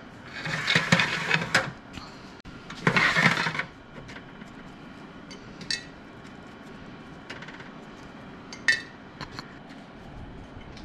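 Stainless steel mesh racks of an Excalibur food dehydrator being handled, with two metallic scrapes of wire on metal in the first few seconds. After that come a few light clicks and taps as dried apricot slices are picked off the wire racks.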